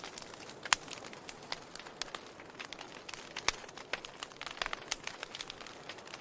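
Burning wood crackling and popping, with irregular sharp snaps over a soft hiss; two louder pops stand out, one under a second in and one about three and a half seconds in.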